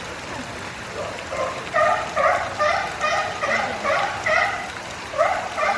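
An animal giving a rapid series of short, pitched calls, about two to three a second, starting about a second in over a steady background hiss.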